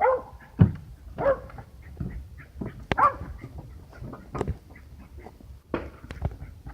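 A dog barking and yipping in a few short calls, with some sharp knocks between them.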